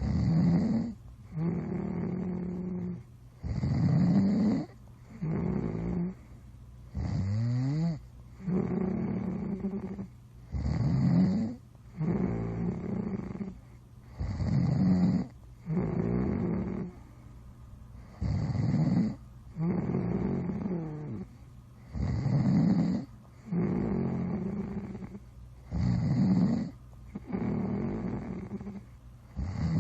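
Snoring: rasping breaths one after another about a second apart, alternating louder and softer, with one snore about a quarter of the way in rising into a whistle.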